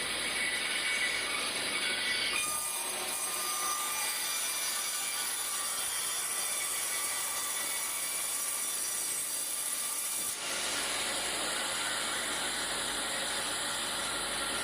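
Sawmill machinery running: a steady mechanical noise with a thin high whine over it, its character shifting abruptly about two seconds in and again about ten seconds in.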